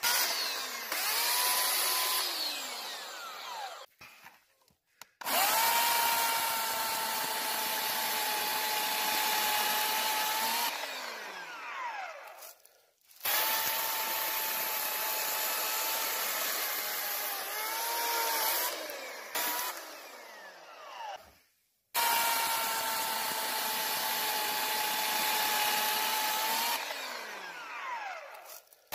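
Small electric chainsaw cutting through a thin tree trunk and branches in several runs. Each run starts suddenly with a high motor whine whose pitch bends as the chain works through the wood, and each stops dead to near silence.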